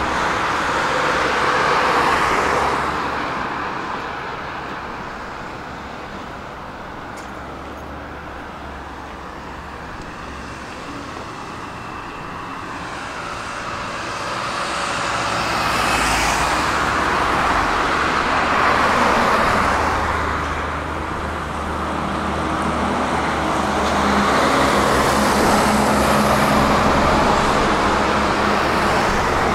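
Road traffic on a multi-lane street, cars swelling and fading as they pass. It goes quieter for several seconds about a third of the way in. In the last few seconds a steady low engine drone builds as a concrete mixer truck comes by.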